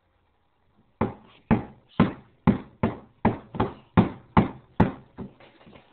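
Cupboard door being tugged repeatedly and knocking against its catch: about ten sharp knocks, a little over two a second, starting about a second in, then softer knocks near the end.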